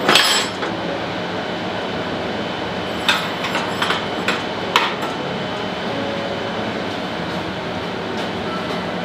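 Aluminium steering wheel being handled and fitted onto a go-kart steering column, making metal knocks and clinks. There is one sharp knock at the start and a few lighter clinks about three to five seconds in, over a steady background noise.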